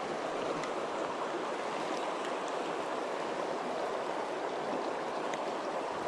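Shallow creek water flowing over a riffle: a steady, even wash of running water.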